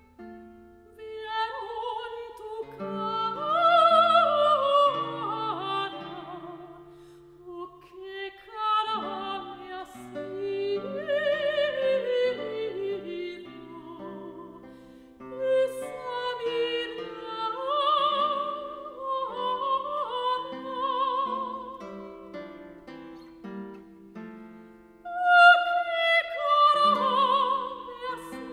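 A soprano sings a Spanish art song with wide vibrato, accompanied by a plucked classical guitar, in several phrases with short breaks between them.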